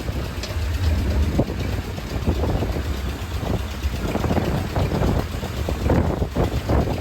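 Fishing boat's engine running with a steady low rumble, along with uneven rushing noise.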